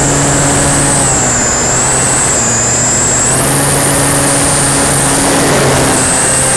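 Durafly Tundra RC plane's electric motor and propeller running at high throttle, heard close up from the airframe: a loud high whine over heavy rushing wind and prop-wash noise. The whine wavers in pitch and rises a little about three seconds in.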